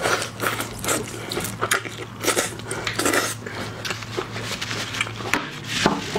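Close-miked eating sounds of a person biting and chewing a soy-marinated shrimp: irregular wet chewing and mouth noises, over a faint steady low hum.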